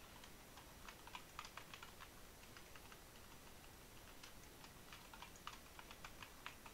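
Faint keystrokes on a computer keyboard: irregular light clicks in two short runs of typing.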